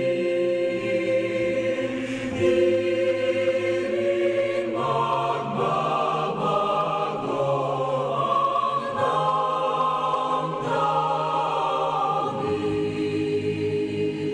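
Background music of slow, held chords that change every two seconds or so.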